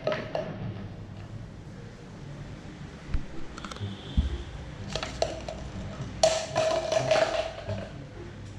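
Scattered light taps and knocks of an empty jar being batted and pushed around by a kitten.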